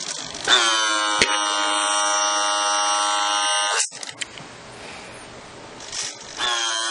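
The small electric gear motor of a model dump truck's tipping mechanism whines steadily as it raises the dump bed. It rises in pitch as it starts, runs for about three seconds and stops suddenly, with a single click early on. It runs again briefly near the end.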